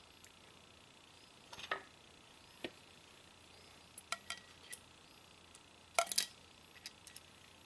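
Small metal parts clinking and ticking as a valve spring is set back onto a 2014 Subaru Forester's cylinder head by hand. The sound is a few scattered light clicks, with the loudest pair about six seconds in.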